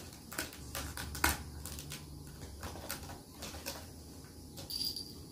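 A cat clawing the sisal-rope post of a cat tree: irregular scratchy rasps and clicks, the sharpest about a second in.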